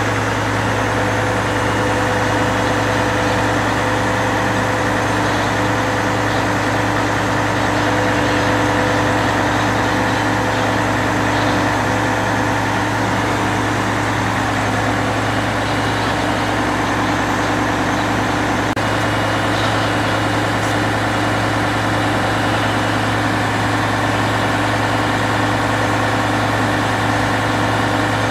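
Diesel engine of a turntable-ladder fire truck running at a steady speed with a constant hum, powering the ladder's hydraulics as the ladder moves.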